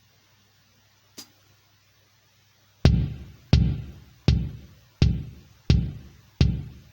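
Electronic drum hits: one faint tap about a second in, then from about three seconds in a steady beat of single strikes, about three every two seconds, each ringing out and dying away.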